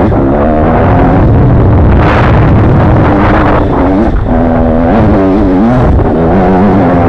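Off-road dirt bike engine running loud, its pitch rising and falling as the throttle is worked along a rough trail. About four seconds in the pitch drops briefly, then climbs again.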